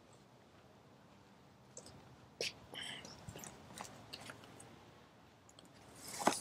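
Faint, scattered light clicks and taps, typical of footsteps on paving and the handling of a handheld camera while walking, with a brief rustle near the end.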